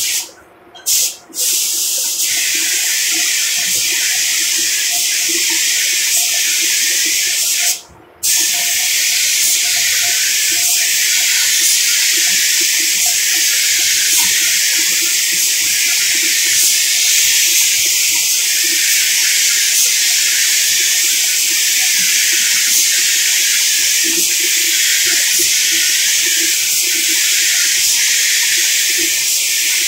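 Gravity-feed air spray gun hissing as it sprays paint. A few short blasts come first, then a brief stop about eight seconds in, then a long steady hiss.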